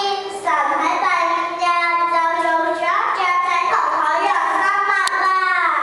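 A small child singing into a microphone: a phrase of long held notes, the last one falling away near the end.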